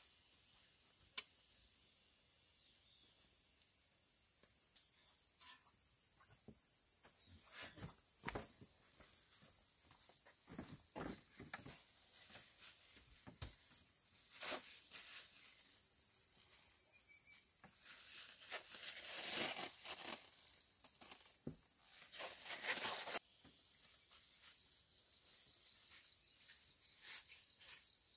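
Crickets or other insects droning steadily in a high, pulsing band. From about eight seconds in until about twenty-three seconds there are scattered clicks and rustles, which are busiest and loudest between about eighteen and twenty-three seconds.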